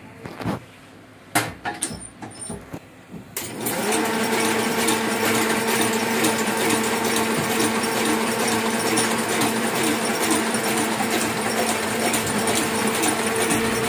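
Hamada 600 sheet-fed offset press starting up about three and a half seconds in, then running steadily with a fast, even clatter over a constant hum. Before it starts there are a few sharp clicks and knocks.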